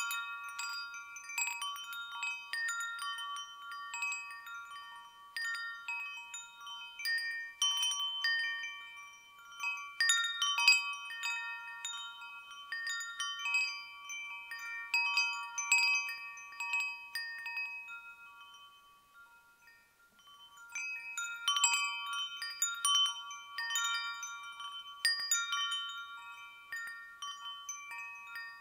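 Chimes ringing: a fixed set of high metal tones struck in irregular clusters, each note ringing on and fading, with a lull about two-thirds of the way through before they pick up again.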